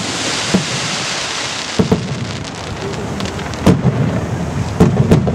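Aerial fireworks shells bursting overhead: sharp booms about half a second in, twice near two seconds, and a cluster near four and five seconds. Each boom rolls into an echoing rumble, over a steady hiss between the bursts.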